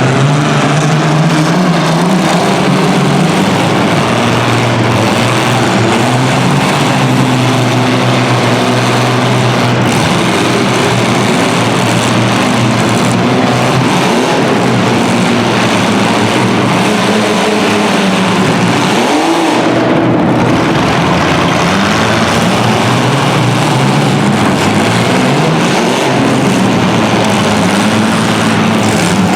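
Several compact-car engines running hard together, their pitches rising and falling as they rev and ease off.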